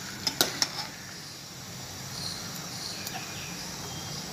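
Fish curry simmering in a steel pot on a gas stove, a steady faint hiss. A steel ladle clinks against the pot a few times in the first second.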